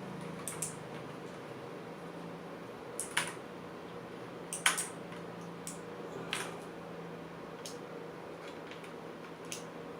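Scattered plastic clicks and clacks as a keycap puller is worked onto the keycaps of a mechanical keyboard to lift one off, about seven separate clicks with the sharpest about halfway through.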